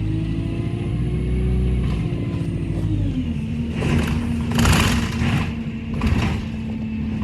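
Bus engine running under the ride, heard from on board. Its pitch eases down about three seconds in, then holds steady. Three short bursts of hissing noise come between about four and six and a half seconds in.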